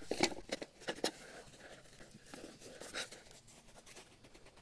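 Gloved hands scraping and scooping loose soil out of a small hole around a sprinkler head. There are a few short scratchy crunches in the first second and another about three seconds in.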